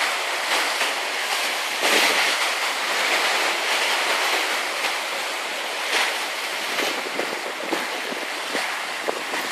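Rushing water and breaking waves along a sailing yacht's hull and wake at speed, mixed with wind. A steady wash that swells about two seconds in and again near six seconds.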